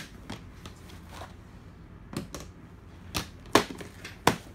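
Irregular sharp clicks and knocks of a plastic airsoft pistol being handled and set down on a tabletop, with the two loudest knocks near the end.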